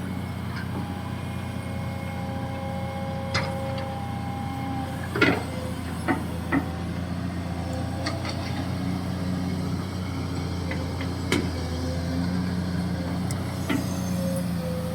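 Kobelco SK200-6 Super hydraulic excavator's diesel engine running steadily while the machine digs, with several short sharp knocks, the loudest about five seconds in.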